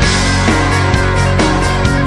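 Loud background music in a rock style, a full band playing steadily, with its held notes changing about once a second.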